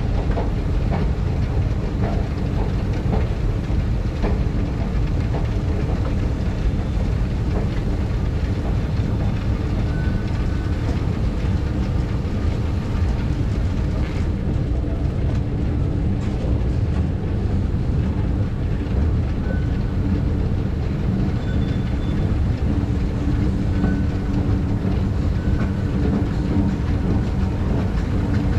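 Escalator running: a steady low rumble with a constant hum from the moving steps and drive, unchanged all the way up.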